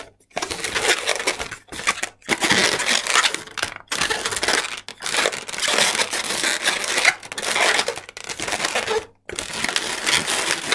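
Latex 260Q modelling balloons rubbing and squeaking against each other and the hands as they are twisted and pinched into shape. The sound comes in rough, crinkly spells broken by several short silences.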